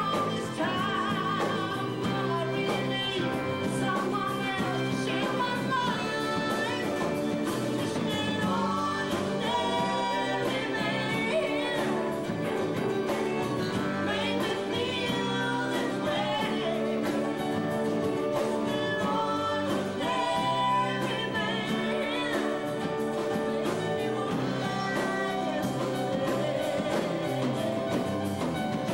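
Live band playing a song: a woman sings lead over acoustic guitar, electric bass, keyboard and drums, with a second woman's backing vocals.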